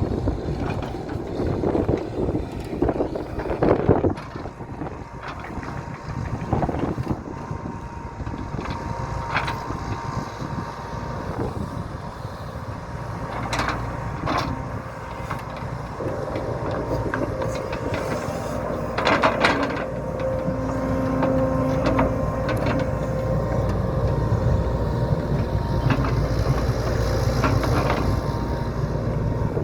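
JCB JS175W wheeled excavator's diesel engine running under load with a steady whine, and a few sharp knocks and clanks as the machine works.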